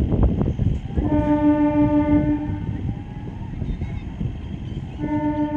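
Train horn sounding two steady blasts, the first about a second in and lasting about a second and a half, the second starting near the end. Just before the first blast, train wheels clatter rapidly over the rail joints.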